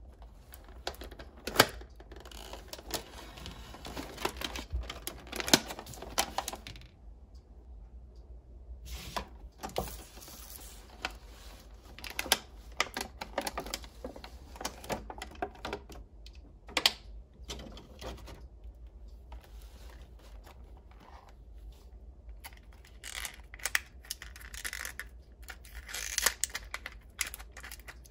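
Unboxing handling sounds: plastic wrap and toy packaging crinkling in stretches, with many sharp taps and clicks of fingernails, cardboard and small plastic toy pieces.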